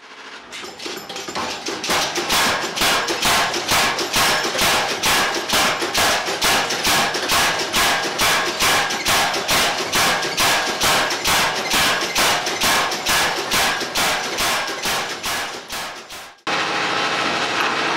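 A power hammer with domed dies made from old railway steel strikes a hot 5160 leaf-spring blank in fast, even blows, about three a second. The blows build up over the first couple of seconds, then run steadily. Near the end the blows stop abruptly and a steady noise takes over.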